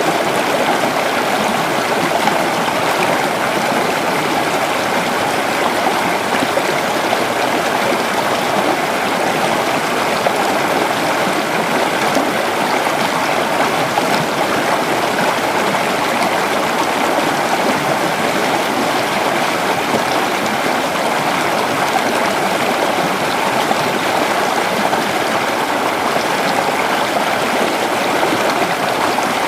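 Creek water flowing steadily over rocks, an even rushing babble with no breaks.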